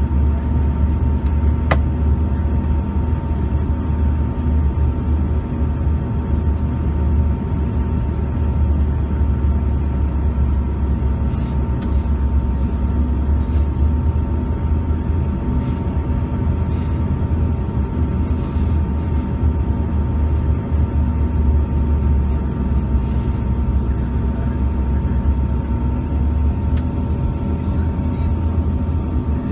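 Steady cabin noise inside a Bombardier CRJ-200 regional jet descending toward landing: a loud, even low rumble of airflow and the two rear-mounted GE CF34 turbofans, with a few faint steady hums over it. A single faint click about two seconds in.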